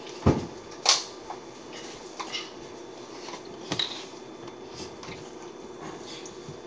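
Close handling noises: a few sharp knocks and clicks, the two loudest in the first second and a double click about four seconds in, over a steady low hum.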